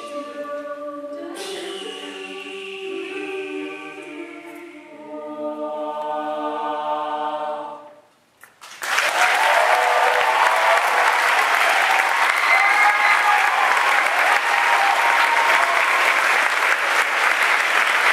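Mixed-voice a cappella group singing the final chord of the song, a few held notes that end about eight seconds in. After a brief hush, an audience breaks into loud, steady applause with some cheering.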